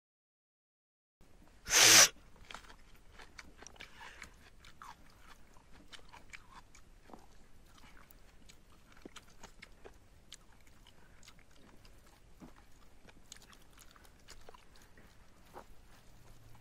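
Close-up eating sounds: fingers squishing and mixing rice and curry on a dried palm-sheath plate, and chewing, heard as many small irregular wet clicks. After about a second of dead silence comes one sudden loud noise about two seconds in, the loudest sound here.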